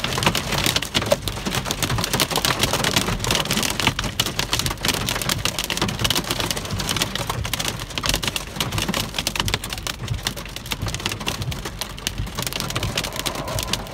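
Pea-sized hail mixed with rain drumming on a car's roof and windshield, heard from inside the car: a dense, steady, loud clatter of countless small impacts.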